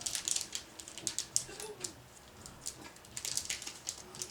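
Glossy baseball trading cards being slid and flipped from one to the next in the hand: an irregular string of quick, crisp papery clicks and swishes.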